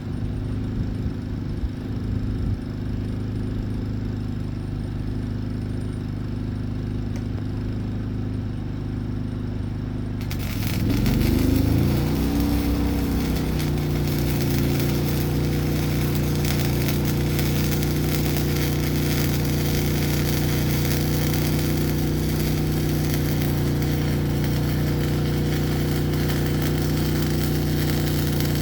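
A generator engine runs steadily. About ten seconds in, a stick-welding arc is struck on the billet and sets up a continuous crackling hiss. The generator's engine note wavers and then settles at a new steady pitch as it takes the welding load.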